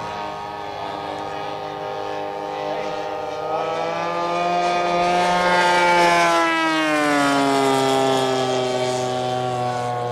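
Engine of a giant-scale radio-controlled Fokker D.VII model biplane running in flight, a steady buzzing note. It gets louder toward about six seconds in, the note climbing, then drops in pitch as the plane passes.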